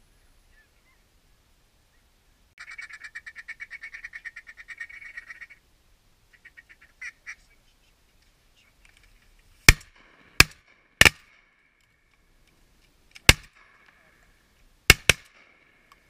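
A fast run of duck quacking, then six shotgun shots at ducks: three about a second apart, one more, and two close together near the end, with quacking between them.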